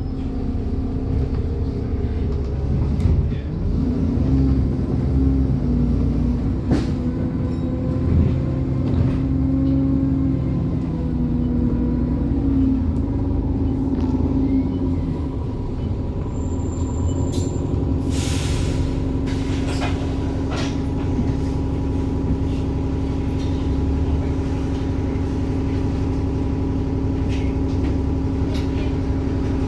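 ADL Enviro 400 double-decker bus's diesel engine pulling with turbo whine, rising and falling in pitch through the gears, then holding a steady note. About 18 s in comes a short, loud hiss of air from the bus's air system.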